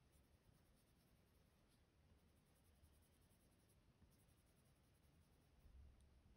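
Faint scratching of a Prismacolor coloured pencil shading on paper in quick, closely repeated strokes.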